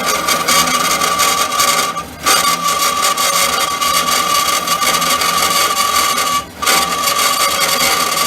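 Horizontal band saw (W.F. Wells L-9) cutting stock clamped in its vise: a steady high whine from the running blade over a rasping hiss, with two brief drop-outs, one about two seconds in and one near the end.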